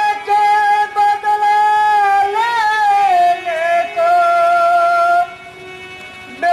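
A high voice singing slow, long-held notes through a microphone. The pitch wavers and steps down midway, the note breaks off about five seconds in, and a new note begins right at the end.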